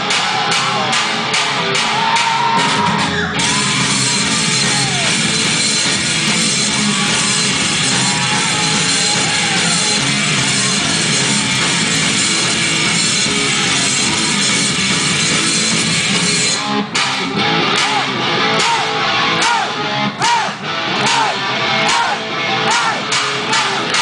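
Loud live rock band recorded from the audience: heavily distorted electric guitar played through Marshall stacks over a pounding beat, with shouted vocals. About three seconds in it thickens into a dense wall of guitar noise. About two-thirds of the way through the beat comes to the fore again.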